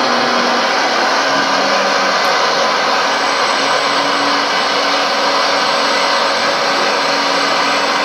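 Radio-controlled scale model hydraulic excavator slewing, its electric hydraulic pump and motors whirring steadily, with a faint low hum that shifts a little in pitch.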